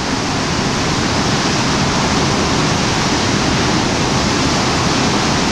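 Floodwater pouring over an overflowing hydroelectric dam's spillway: a loud, steady rush of cascading water.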